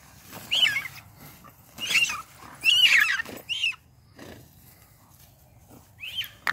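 Shrill, pitch-bending animal squeals, five short cries, four close together and one more near the end, as a dog bites and worries a small animal in the grass.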